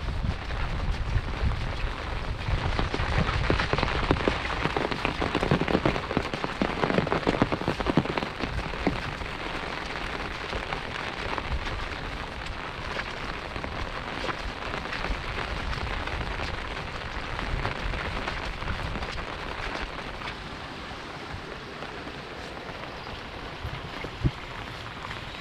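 Heavy monsoon rain falling and pattering densely on surfaces, loudest in the first third and easing slightly after. There is a single sharp tap near the end.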